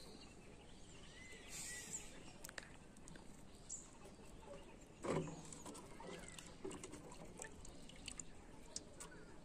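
Faint clicks and small knocks of a kitchen knife cutting a green guava over a wooden chopping board, with one louder dull knock about five seconds in.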